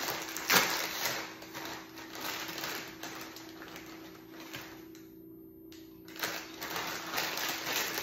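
Crinkling and rustling of a plastic snack bag being handled, in irregular crackly bursts, loudest about half a second in, dying down briefly past the middle and starting up again.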